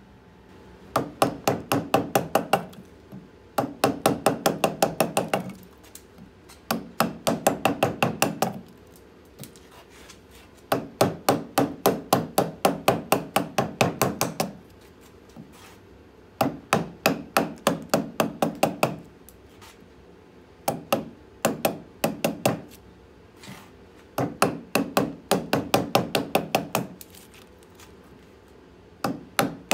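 Mallet striking a carving gouge in quick runs of about four blows a second, with short pauses between, driving the gouge into a birch log to hollow out a bowl.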